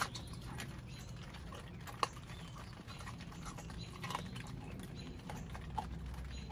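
A pit bull chewing and crunching a whole raw chicken, with a few sharp cracks of bone spaced about two seconds apart and smaller wet ticks between them.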